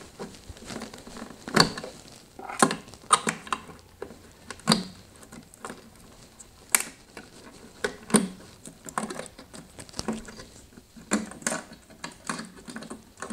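Plastic wire-harness plugs being pulled off a refrigerator control board: about a dozen irregular sharp clicks and short rattles of plastic connectors and wires.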